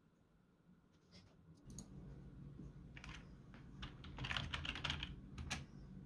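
Computer keyboard typing: a few scattered keystrokes, then a quick run of them about four seconds in and one last sharp key press near the end.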